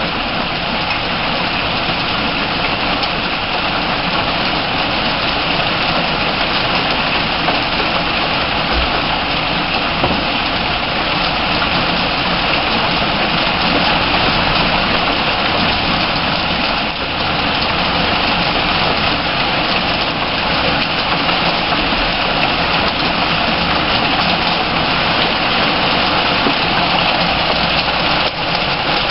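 Heavy rain pouring steadily in a downpour.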